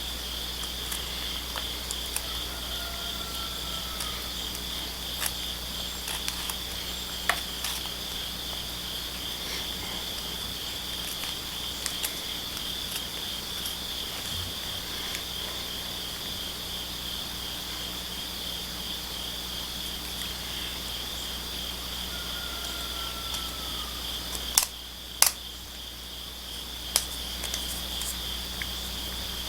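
A steady chorus of crickets or similar insects trilling in a high continuous buzz, with scattered sharp clicks, two of them louder near the end.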